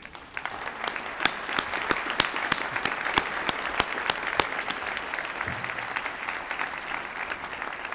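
Audience applauding, a dense patter of many hands with a few close, sharp individual claps standing out above it; the applause eases off slightly toward the end.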